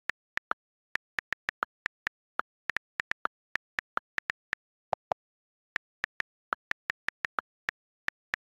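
iPad on-screen keyboard key clicks as words are typed: a quick, irregular run of short ticks, about three or four a second, with dead silence between them. Just before the middle come two lower-pitched clacks, then a brief pause before the typing picks up again.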